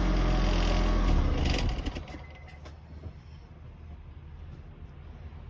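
Car exhaust running through an empty drink can taped over the tailpipe as a homemade muffler: the engine runs loudly, then about a second and a half in drops back to a faint low idle.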